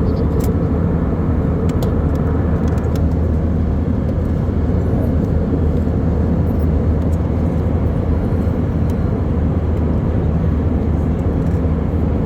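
Steady, loud drone inside an airliner's passenger cabin: a constant, low engine and air noise that does not change.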